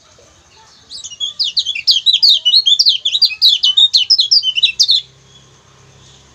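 Kecial kuning (yellow white-eye) singing a fast, chattering run of sharp, high, down-slurred chirps for about four seconds. The song starts about a second in and stops abruptly; a faint low hum comes in near the end.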